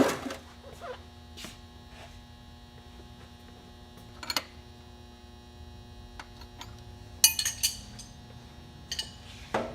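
Sharp metal clinks and taps from tools and fuel-line fittings being handled, one loud at the start and a quick cluster about seven seconds in, over a steady electrical hum.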